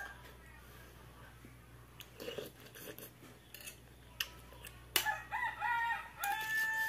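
A rooster crowing near the end, a few rising and falling notes ending in a long held one. A spoon clinks against a steel bowl just before it, and once a few seconds earlier.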